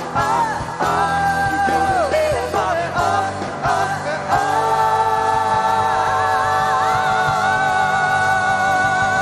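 A man singing a Vietnamese song over backing music, holding one long note from about four seconds in.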